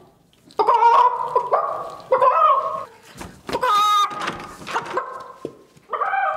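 A person imitating a chicken: a string of about six loud, drawn-out squawking calls, one higher-pitched in the middle.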